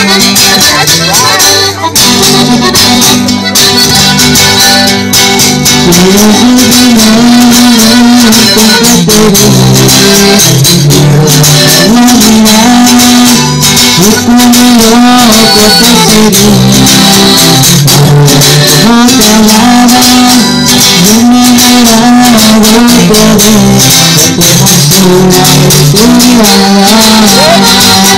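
Live band playing a mostly instrumental passage of Latin regional music: a melody line over a steady percussion beat, recorded very loud, close to clipping.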